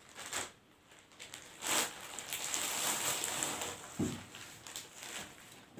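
Rustling and crinkling of a plastic pack of kinetic sand being torn open and emptied out, with a soft thump about four seconds in.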